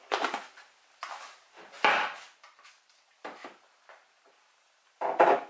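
Spice containers and utensils being handled on a kitchen counter: a handful of short knocks and clatters, the loudest about two seconds in.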